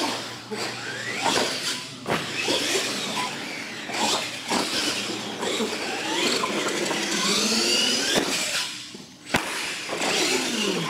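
Radio-controlled monster trucks driving hard on a concrete floor: motors whining up and down in pitch with the throttle, tires squealing, and several sharp knocks from landings and bumps, the sharpest about nine seconds in.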